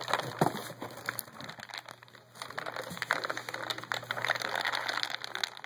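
Many small pellets crackling and rattling as hands rub a clump of stuck-together pellets, loose pellets breaking off it and falling into a cardboard box. The crackling thins out briefly about two seconds in, then comes back busier.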